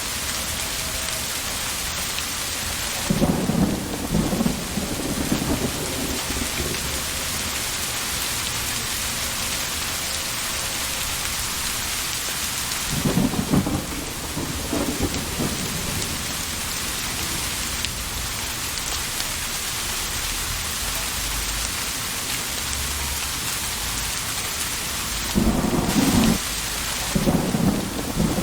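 Steady heavy rain hissing throughout, with thunder rumbling three times: a few seconds in, about halfway through, and again near the end.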